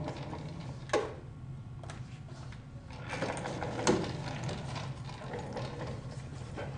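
Irregular small mechanical clicks and rattles over a steady low hum, with two sharper knocks, one about a second in and another just before four seconds.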